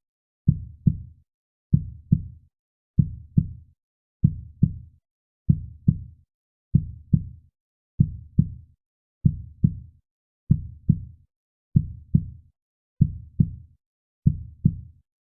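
Heartbeat sound effect: slow, steady paired low thumps (lub-dub) about once every 1¼ seconds, ending just before the close.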